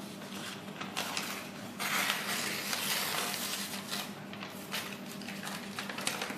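Sublimation transfer paper being peeled off a freshly pressed plate by gloved hands: crinkling, rustling paper with small crackles, loudest for about two seconds in the middle, over a steady low hum.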